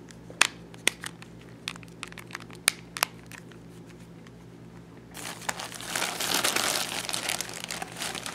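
A few sharp plastic clicks as a mobile phone is handled. About five seconds in, a thin plastic bag starts crinkling and rustling as a hand rummages inside it.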